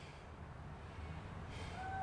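Low outdoor background rumble. Near the end a distant siren begins to wail, a faint slightly falling tone.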